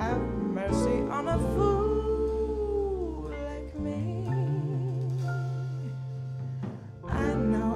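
Live jazz ballad: vibraphone, drums and electric bass playing, with a woman's voice holding long notes that bend downward and waver with vibrato.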